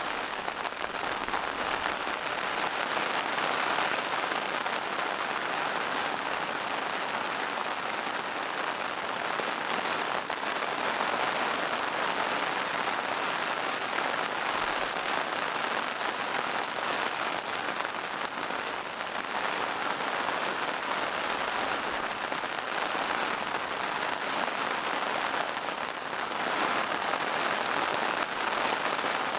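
Steady rain falling through forest foliage and onto rocks, an even patter of many small drops with no let-up.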